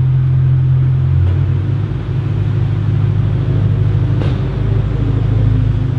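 BMW E90 M3's 4.0-litre V8 running steadily at idle through an aFe aftermarket exhaust, a deep, even exhaust note.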